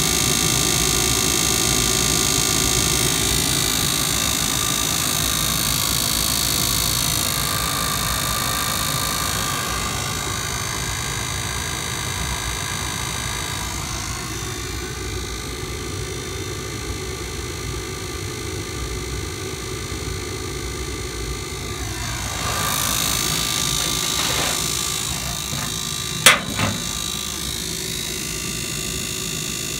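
Goodman GPG packaged gas unit running, a steady mechanical hum with a rushing noise, and one sharp click near the end.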